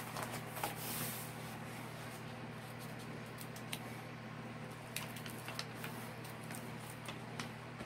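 Soft rustling and crinkling of a plastic sleeve and the protective film of an adhesive diamond painting canvas as they are handled and a corner is peeled back, with a few light ticks. A steady low hum runs underneath.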